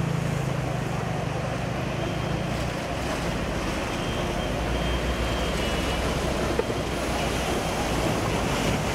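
Floodwater surging and splashing as a Toyota MPV ploughs through it, pushing a bow wave, over the low hum of its engine, which is strongest in the first couple of seconds.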